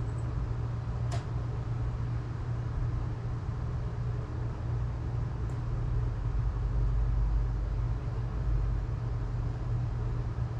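Steady low rumble of a running car, with two faint clicks, one about a second in and one around the middle.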